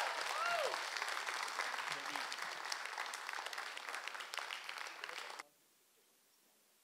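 Audience applauding in an auditorium, the clapping thinning a little, then cut off abruptly about five and a half seconds in.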